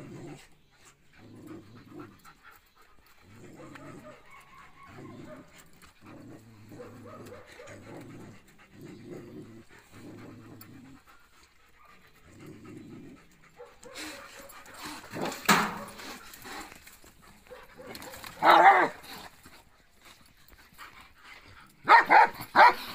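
Dogs squaring off with a cat. A rhythm of low pants comes roughly once a second through the first half, then loud snarling outbursts follow, and a quick run of sharp barks comes near the end.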